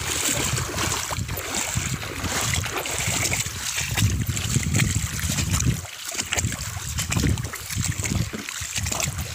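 Shallow river water splashing and sloshing around the legs of someone wading through it, in irregular surges roughly a second apart, over the steady rush of the stream.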